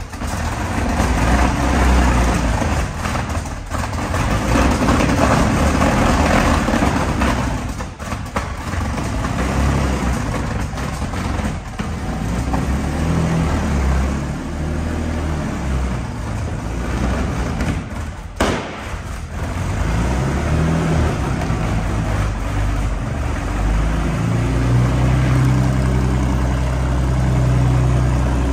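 Engine running after a hard start: revs rising and falling, a short break about eighteen seconds in, then settling into a steady low idle near the end.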